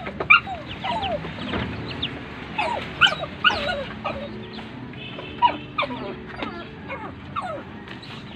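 Ducklings peeping: a run of short, high calls, each falling quickly in pitch, several overlapping at times.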